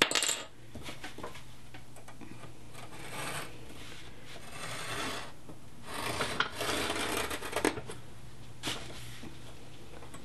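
A thin hand tool drawn along a steel ruler across a paper book cover, making about four scratchy strokes at the line where the overlong cover is to be trimmed.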